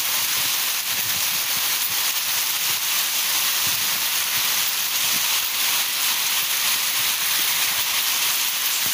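Heavy shower of small hailstones mixed with rain pelting a parked car and the ground: a dense, steady hiss with faint scattered knocks.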